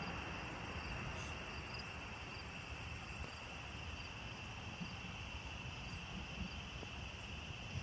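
Night insect chorus: a steady, unbroken high-pitched trill, with fainter short chirps above it at uneven intervals, over a low background rumble.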